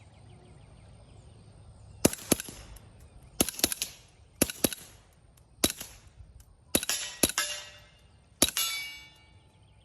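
Suppressed .22 LR pistol, a Colt 1911 Rail Gun replica with a CGS Group Hydra stainless suppressor, fired shot after shot at an unhurried pace. There are about ten sharp cracks, some in quick pairs, beginning about two seconds in, a few with a brief metallic ring after them.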